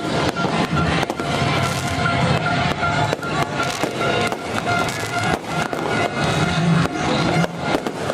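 Fireworks going off in quick, irregular bangs and crackles, with music and steady horn-like tones underneath.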